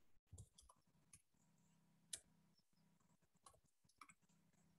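Faint computer keyboard keystrokes: a scattered handful of soft clicks over near silence, the loudest about two seconds in, with a faint steady low hum underneath.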